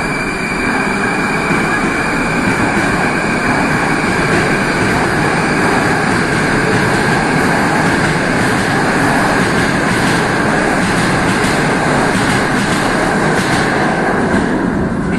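Moscow Metro train pulling out of the station and running past the platform: a loud, steady rumble of wheels and motors. Through the second half comes a rapid clatter of clicks from the wheels, and the noise drops away just as the last car clears the platform at the end.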